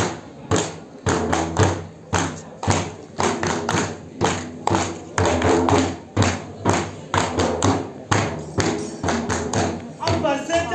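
Performers clapping a steady rhythm in unison, about two to three claps a second, over a group of voices chanting in time. Near the end a group song begins.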